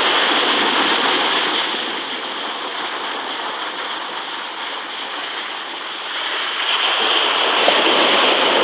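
Ocean surf washing over rocks and sand, a steady rushing that eases for a few seconds in the middle and swells again near the end.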